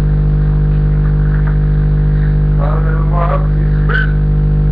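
Loud, steady electrical hum with a buzzing edge, unchanging throughout. Brief snatches of a voice come through about two and a half to four seconds in.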